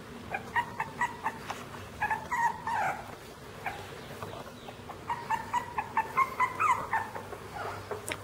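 Puppies just under four weeks old whimpering: several quick runs of short, high squeaks, loudest in the later half.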